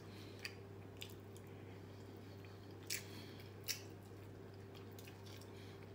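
Quiet chewing and mouth sounds of a person eating food by hand, with a few short sharp smacks, the loudest about three seconds in and again shortly after. A steady low hum runs underneath.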